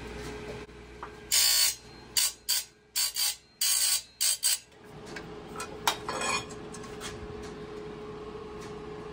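A saw-sharpening grinder runs with a steady hum while its wheel grinds the teeth of a circular saw blade in about seven short, loud, harsh bursts. A sharp metallic click follows about six seconds in.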